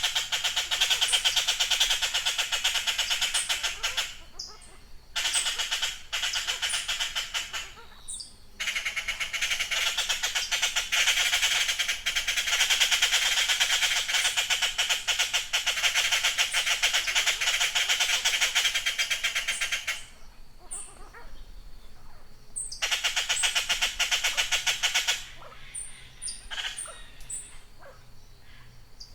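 Blue jays giving harsh, grating calls in long dense bouts that stop and start abruptly, with short high chirps in the quieter gaps between bouts.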